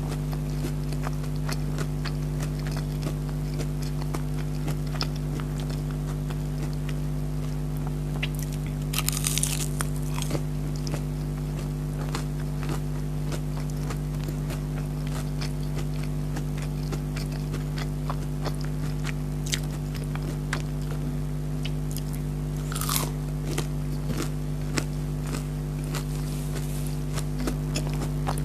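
Close-up chewing and biting of crispy breaded chicken nuggets: scattered crunches and mouth clicks, with louder bites about a third of the way in and again near the end. A steady low hum runs underneath.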